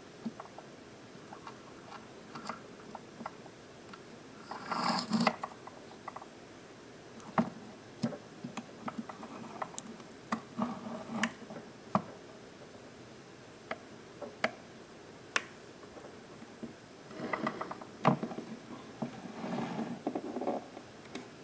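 Handling noise: scattered sharp clicks and taps, with bursts of rustling about five seconds in and again near the end, over a faint steady hiss.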